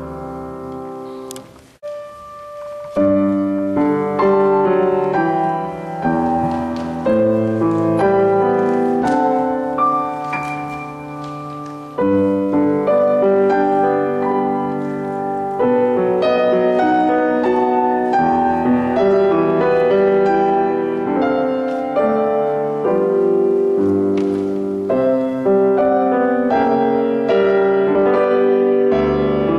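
Solo piano playing slow, sustained chords. A held chord fades away in the first two seconds, and after a short pause the playing starts again more loudly about three seconds in, then carries on steadily.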